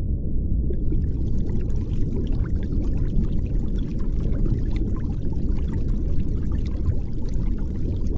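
Underwater rush of air bubbles from a diver's plunge into the sea: a steady low rumble, with a fine crackling fizz joining about a second in.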